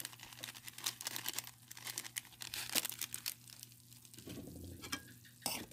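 A foil-plastic Magic Sarap seasoning sachet crinkling in the hand as it is opened and handled: a quick string of short rustles and crackles.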